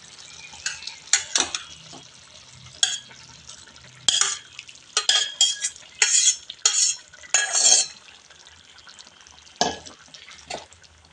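A metal spatula scraping and clacking against a pan and a steel vessel in irregular strokes, most of them between about five and eight seconds in. Boiled lentils are being spooned into a bottle gourd kootu gravy and stirred in.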